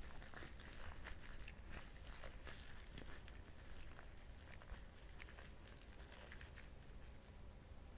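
Gloved hands kneading butter mixed with dashi fish powder: faint, irregular sticky crackling with many small clicks.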